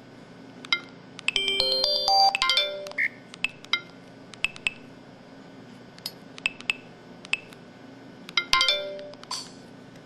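Samsung SCH-E200 mobile phone playing its built-in sound effects: a scattering of short electronic beeps and key tones, with a brief multi-note chime about a second and a half in and another near the end.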